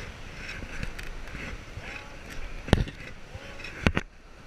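White-water river rushing around an inflatable raft as it is paddled, with three sharp knocks: one a little before three seconds in and a quick pair near the end.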